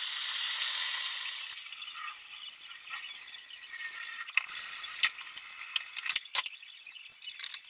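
Tomato sauce simmering in a stainless saucepan: a soft sizzling hiss that fades after about two seconds, with scattered small pops of bursting bubbles.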